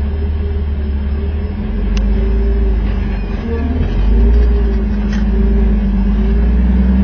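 Off-road Jeep's engine running at low revs, a steady low drone that grows louder about four seconds in. Two faint clicks sound over it.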